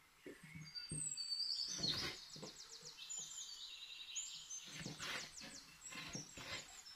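Small birds chirping and singing quick, high trills, with knife cuts knocking on a wooden cutting board as a potato is sliced.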